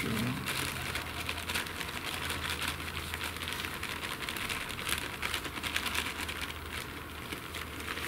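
Table salt pouring from a paper salt packet into a small bowl: a continuous dry rustle of falling grains, with the packet crinkling in the hand.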